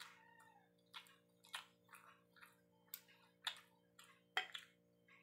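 Quiet eating sounds: about ten soft, irregular clicks and taps of a metal fork and spoon on a plate, mixed with chewing, over a faint steady hum.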